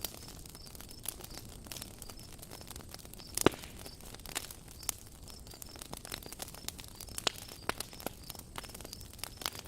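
Campfire crackling: burning wood giving irregular sharp pops and snaps over a low steady hiss, with one louder pop about three and a half seconds in.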